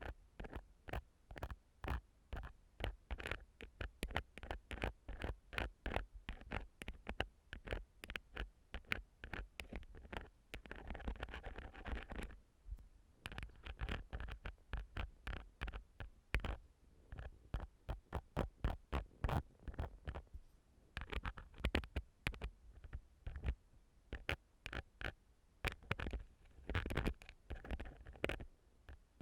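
Ear-cleaning tool scratching and rubbing on a microphone's ear in close-up, in quick repeated strokes a few times a second. About ten seconds in there is a longer stretch of continuous rubbing.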